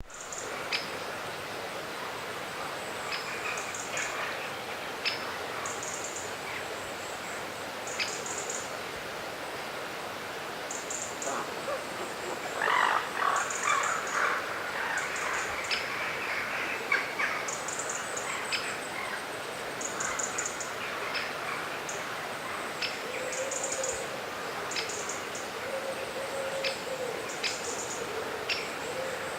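Small songbirds chirping and calling, repeated short high notes with a louder burst of calls about halfway through, over the steady rushing of a flowing river.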